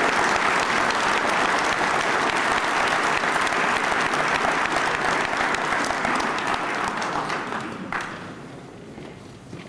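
A large crowd applauding, steady and dense, then dying away over the last couple of seconds.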